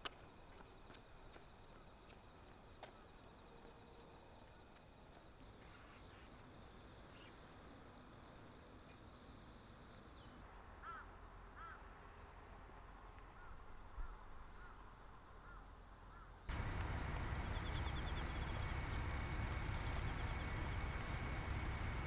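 Steady high-pitched drone of insects, louder from about five seconds in and then dropping away, with a few short bird chirps in the middle. About sixteen seconds in, a broad low rumbling noise takes over.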